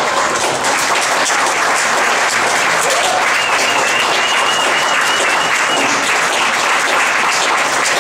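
Audience applauding steadily, many hands clapping together, with a thin high tone held for about two seconds midway through.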